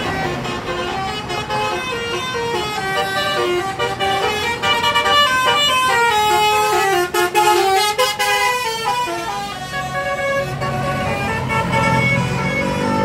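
Bus 'telolet' Basuri multi-tone horn playing a tune of held notes that step down and back up in pitch, over a bus engine running.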